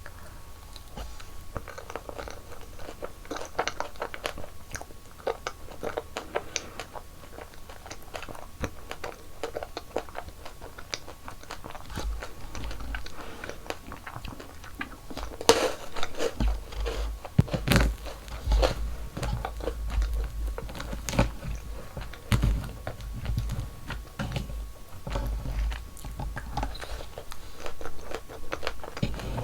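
Close-miked mouth sounds of someone biting into and chewing dessert, with many small crisp crunches and clicks. Two sharper snaps stand out about halfway through.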